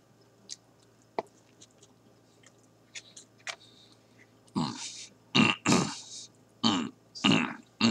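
A man's mouth while chewing a bite of burger: faint clicks and smacks in the first half, then from about halfway several short muffled voiced sounds made with his mouth full.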